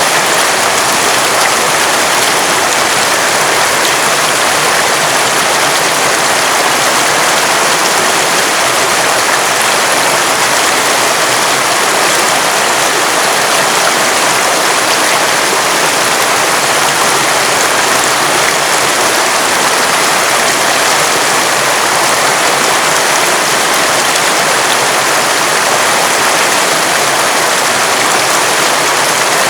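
River water running steadily over rocks, a constant rushing with no breaks or changes.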